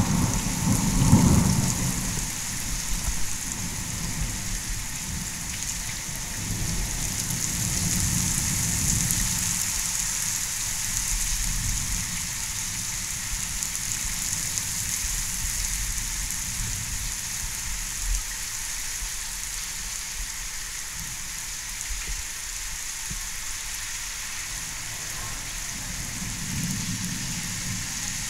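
Heavy rain pouring steadily in a strong thunderstorm, with low thunder rumbling in the first two seconds.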